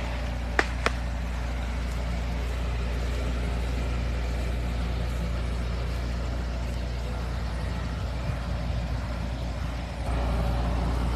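Steady low engine hum, with two sharp clicks just under a second in and the hum stepping up slightly near the end.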